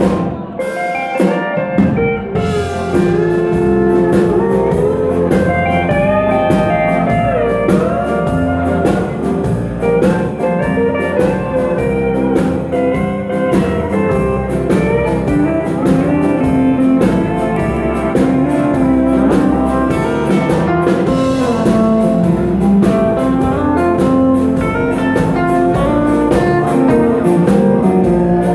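A live band playing dance music, with guitar and drums keeping a steady beat.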